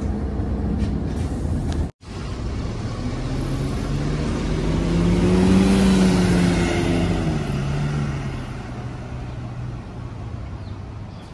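City bus engine: an idling hum from inside the cabin for the first two seconds, then, after a cut, the bus pulling away from the stop close by. Its engine note rises, is loudest about six seconds in, then falls and fades as the bus drives off.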